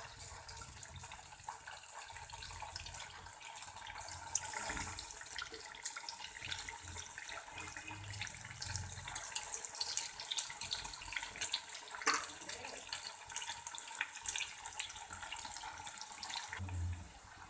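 Stuffed bread rolls frying in hot oil in a pan: a steady sizzle with many small crackling pops.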